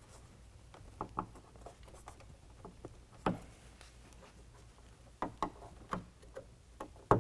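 Scattered light clicks and taps of hands handling the acrylic bug shield and pushing its fastening clip onto the edge of the truck's hood, the sharpest click near the end.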